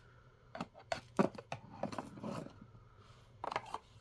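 Small plastic toy pieces and a miniature plastic crate clicking and tapping as they are handled and set into a plastic display case. The taps are irregular, the sharpest about a second in and a few more near the end.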